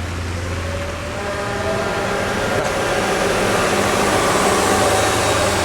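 Motor vehicle engine running under load and drawing closer, growing steadily louder, with a whine that rises slightly in pitch.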